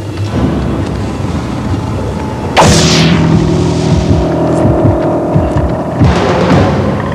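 Film soundtrack: tense music with two sudden booming hits, about two and a half seconds in and again about six seconds in, each trailing off in a falling hiss.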